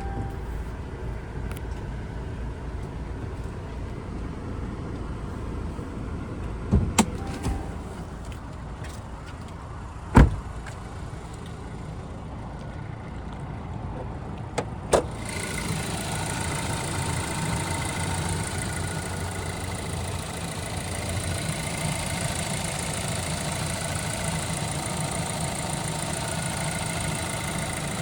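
Car interior sounds: a few sharp clicks, then a loud single thump like a car door shutting about ten seconds in. About fifteen seconds in, after two more clicks, the engine starts and settles into a steady idle.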